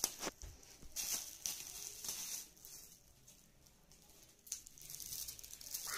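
Clear plastic packaging and cardboard rustling and crinkling as a small child handles and pulls at a wrapper, in short scattered rustles with a quieter pause in the middle.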